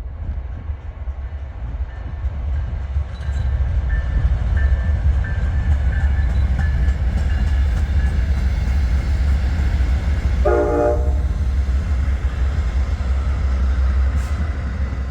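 O gauge model train running on its track with a steady low rumble, and a short horn blast about ten seconds in.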